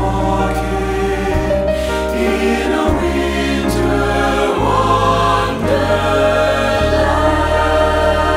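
Mixed SATB choir singing close jazz harmonies over a flowing piano accompaniment, with held chords and a moving bass line.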